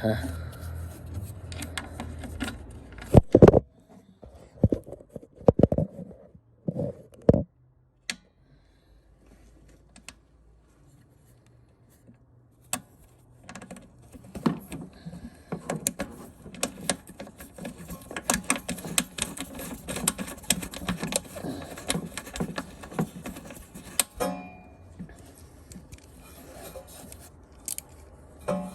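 Metal tools and small parts clinking, knocking and scraping by hand during work on a mower's blade brake cable hardware. A few sharp knocks come in the first seconds, then a quiet stretch, then a long run of quick irregular clicks and rattles.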